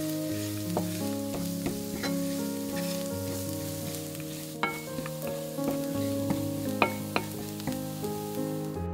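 Diced shallot sizzling in oil in a frying pan over medium heat, stirred with a wooden spatula that scrapes and clicks against the pan several times. The sizzling stops abruptly at the very end.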